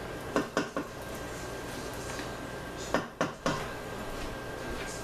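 A colander tapped against the rim of a stainless steel pot, three quick knocks to shake out the drained ground meat, then two or three more clattering knocks of kitchenware about three seconds in.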